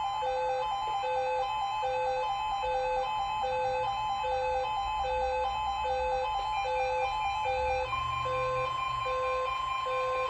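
Electronic emergency alert tones: a steady tone with pulsing beeps alternating between a low and a higher pitch about twice a second, changing to a higher steady tone about eight seconds in.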